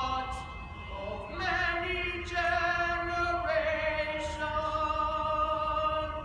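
Voices singing together in long held notes, several pitches at once, in three sustained phrases.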